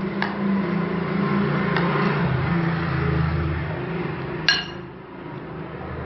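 Metal spoon stirring chopped salad in a glass bowl: a moist rustle of vegetables, with the spoon clinking against the glass three times, the loudest and most ringing clink about four and a half seconds in. A low hum runs underneath for the first few seconds.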